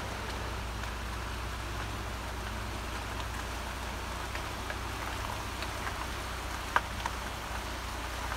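Swollen river rushing steadily over rocks, with small ticks of splashing water and one sharper click about seven seconds in.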